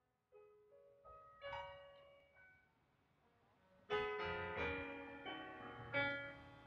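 Quiet piano music: a few single notes, then fuller chords struck about four seconds in and again near the end, each ringing out and fading.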